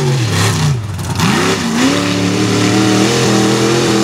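Lifted mud truck's engine revving hard as it spins its tires through a dirt pit. The pitch rises and falls twice in the first couple of seconds, then holds at high revs.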